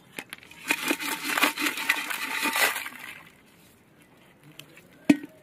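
Small live crabs scrabbling and clattering against each other, their shells and legs making a dense crackling rattle for about two and a half seconds. A single sharp click comes near the end.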